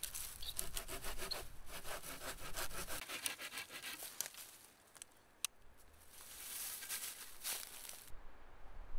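Small hand saw cutting through a dead branch with quick back-and-forth strokes that stop about three seconds in, followed later by a shorter stretch of rasping and rustling.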